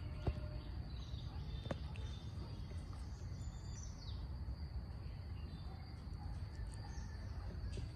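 Low steady background noise with a faint, steady high-pitched tone, and two light clicks, about a third of a second in and again near two seconds in.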